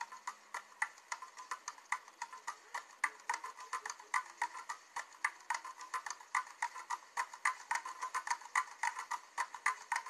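Rapid, irregular light clicking, about seven or eight clicks a second, crisp and high with no low thump.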